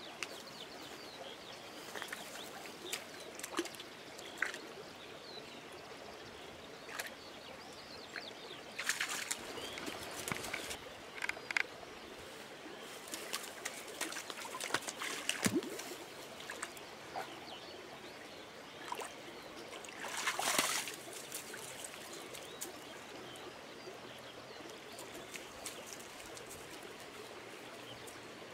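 A dog wading in a shallow stream, water splashing around its legs in irregular bursts over a faint steady trickle of running water; the loudest splashes come about nine seconds in and about twenty seconds in.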